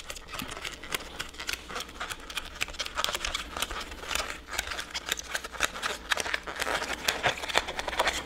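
Foam core board crackling in many small, irregular clicks as it is bent by hand along its pressed indentation lines into a curve.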